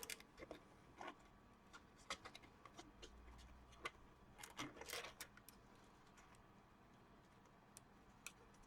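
Faint scattered clicks and rustles of hands handling wires and a 3D-printed PLA plastic case, tucking the wires in; the handling thins out near the end.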